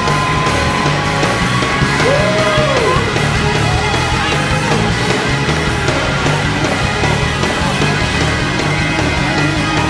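Loud live church band music, dense and heavy, with a steady repeating bass line.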